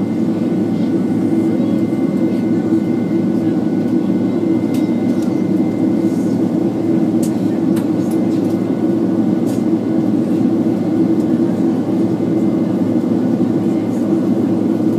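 Steady cabin noise of a Boeing 767 airliner in flight, the jet engines and airflow making a constant low roar with a faint steady high whine above it.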